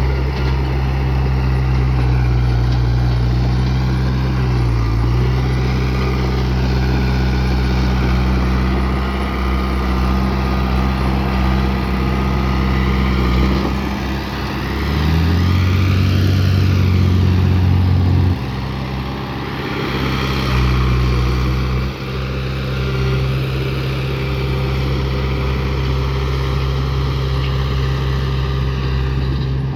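Diesel engine of heavy earthmoving equipment running steadily and loudly. Its pitch dips briefly about five seconds in, rises for a few seconds midway, then drops back.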